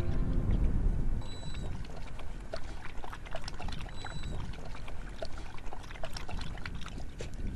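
A wolf lapping water from a basin: an irregular run of small wet laps and splashes.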